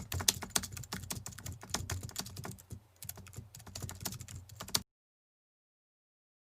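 Rapid, irregular clicking like typing on a keyboard, which cuts off abruptly near five seconds in, followed by silence.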